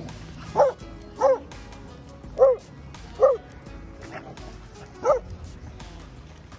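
Dog giving five short, high yips while play-wrestling with another dog, each call rising and falling in pitch, spaced irregularly about a second apart.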